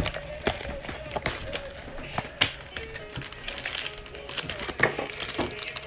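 Cardboard trading-card box being opened by hand and its wrapped packs slid out: a scatter of sharp clicks, scrapes and plastic crinkles. Faint music plays underneath.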